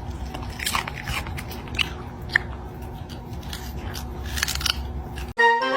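Irregular crunching and crisp clicking, as of chewing, over a steady low hum, cutting off suddenly near the end.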